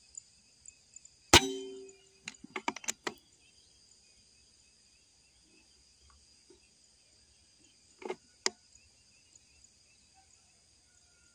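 An air rifle fires a single shot about a second and a half in: a sharp crack with a short ringing tail. A quick run of metallic clicks follows, and two more clicks come near the end, as the action is worked. A steady insect buzz runs underneath.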